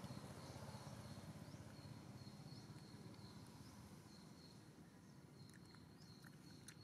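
Near silence: faint outdoor ambience with a low rumble and a thin, steady high tone that comes and goes, and a few faint ticks near the end.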